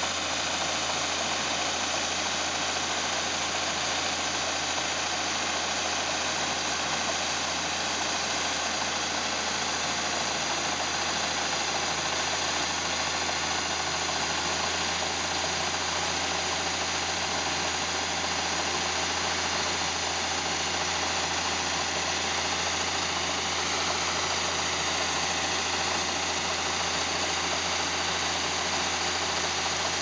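Tractor engine running steadily, driving a grain cart's unloading auger as it pours shelled corn into a semi grain trailer.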